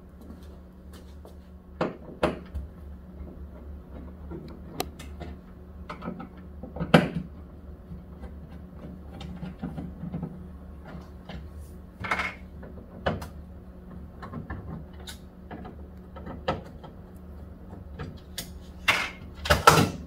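Scattered knocks and clicks of plastic parts being handled inside an open refrigerator's fresh-food compartment, the sharpest about seven seconds in and a cluster near the end, over a steady low hum.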